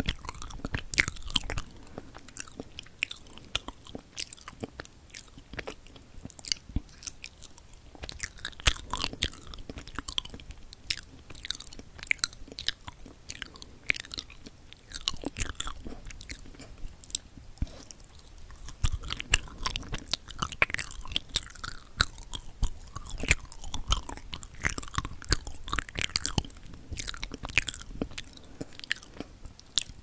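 Close-miked chewing of a dense, fudgy wagashi (Japanese-style flower sweet): many short mouth clicks and smacks in an irregular rhythm.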